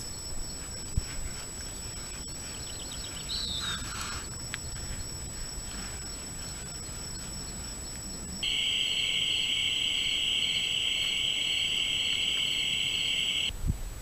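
Insects buzzing steadily in the daytime woods. A high, thin drone is joined about eight seconds in by a louder, lower buzz that stops shortly before the end, with a brief chirp about three seconds in.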